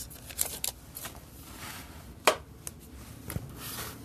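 Baseball cards and packs being handled: soft rustling swishes broken by a few sharp taps and clicks, the loudest a little past halfway.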